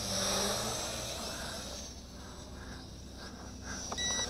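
Small toy quadcopter's propellers buzzing as it flies close by. The sound fades about two seconds in as it moves away. A short electronic beep comes near the end.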